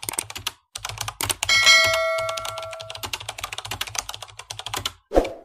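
Keyboard-typing sound effect: a fast run of clicks as the outro text types out letter by letter. A chime rings about one and a half seconds in and fades out by about three seconds. A short thump comes near the end.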